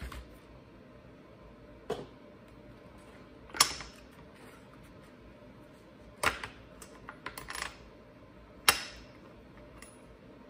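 Sharp metal clinks of a spark plug wrench being fitted to and worked on the spark plug of an Echo CS-271T chainsaw: a handful of separate clinks a second or two apart, with a run of lighter clicks between them.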